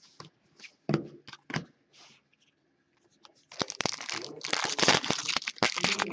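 A few light knocks and clicks from cards being handled. About three and a half seconds in, a hockey card pack's foil wrapper is torn open and crinkled loudly.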